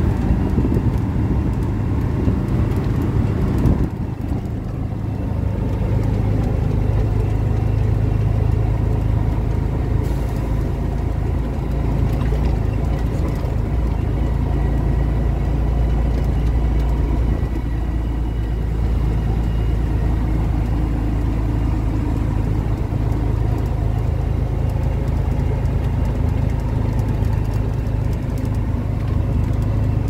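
Truck engine running steadily while the truck drives along a dirt road, heard from inside the cab. The level dips briefly about four seconds in, then holds steady.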